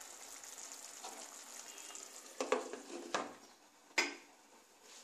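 Parwal in poppy-seed gravy simmering in a nonstick pan on a low gas flame, with a soft, steady sizzle. About two and a half seconds in, a glass lid knocks and clinks against the pan a couple of times, and it lands with one sharp clink about four seconds in as it is set on to cover the pan.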